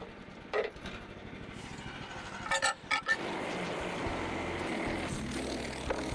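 Portable band sawmill running, its engine humming low, with a few sharp metallic clinks in the first three seconds and then a louder steady rushing noise from about three seconds in.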